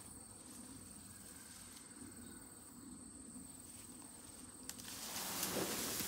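Low steady buzzing of a honeybee swarm under a thin, steady high insect trill. Near the end, a click and then a louder rustling of branches and leaves.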